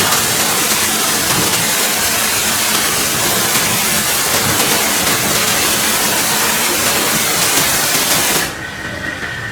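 High-pressure water spray from a pressure washer, a loud steady hiss. It cuts off about eight and a half seconds in, leaving a quieter steady hum.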